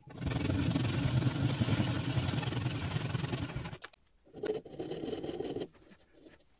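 A handheld power tool runs steadily for almost four seconds on the oak frame with its purpleheart inlays, then stops abruptly. A shorter, quieter sound follows about a second later.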